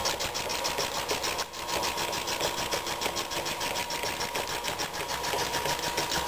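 Circa-1923 Brunner belt-driven air compressor running, driven by flat belt from a Westinghouse electric motor: a rapid, even clatter of the pump strokes over a steady tone.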